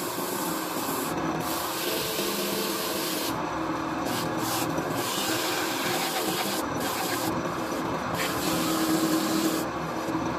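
Sandpaper held by hand against a wooden workpiece spinning on a lathe, a steady sanding hiss over the even hum of the lathe. The hiss stops and starts several times as the paper is lifted and pressed back on.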